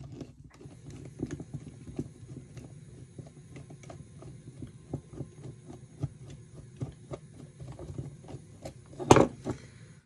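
A screwdriver turning a steel screw out of a metal phone part, with a steady run of small clicks about two or three a second; a louder knock near the end as the screwdriver is laid down on the wooden bench.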